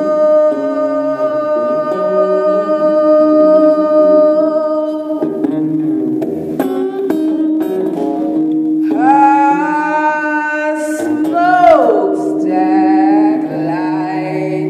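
Electric guitar holding a steady drone under a woman's singing voice. Near the middle a high held note rises in, then slides steeply down, and a wavering note follows.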